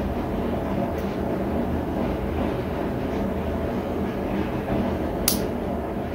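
Handmade derringer trigger mechanism worked by hand, giving one sharp click about five seconds in and a fainter tick about a second in. Under it runs a steady low droning hum.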